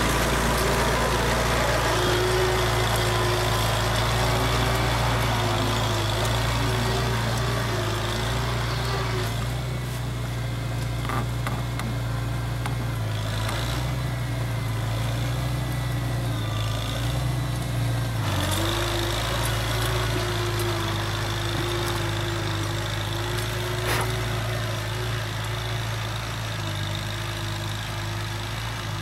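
1948 Farmall Cub tractor's four-cylinder flathead engine running steadily while pulling a potato plow through the rows, with a brief dip in engine speed a little past the middle.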